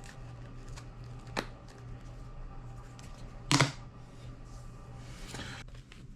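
Light clicks and taps of small iPod classic parts being handled, with one louder sharp click about three and a half seconds in, over a steady low hum.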